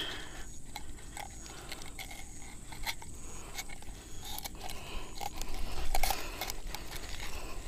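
Fishing pliers clicking and scraping against the hook and lure in a snakehead's mouth as the hook is worked free, with scattered small clicks and handling noise, a little louder about six seconds in.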